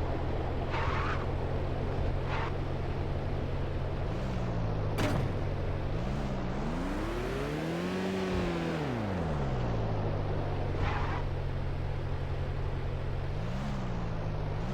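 Car engine idling steadily. It revs up and back down once around the middle, with shorter blips of revs a few seconds in and near the end. A few brief clicks or hisses sound over it.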